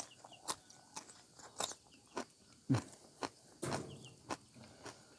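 A person chewing a mouthful of food close to the microphone, with irregular crunches as the bites are broken up.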